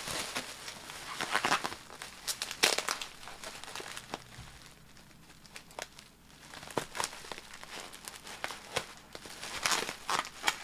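Bubble wrap crinkling and tearing as it is cut and peeled off a packed item, in irregular bursts with sharp crackles and a quieter stretch midway.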